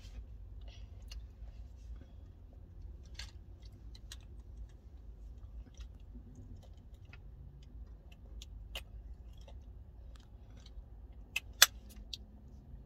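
Soft wet clicks and smacks of a child sucking on a lollipop, scattered irregularly, with one sharp louder click near the end, over a low steady rumble of the car.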